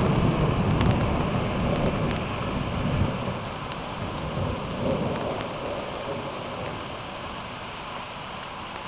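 Thunder rumbling, loudest in the first three seconds, then dying away by about six seconds in, over a steady hiss of falling rain.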